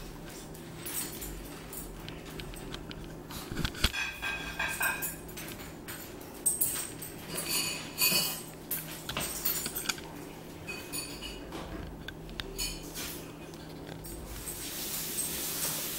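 Dishes and cutlery clinking and knocking off and on, some strikes ringing briefly, over a low steady hum.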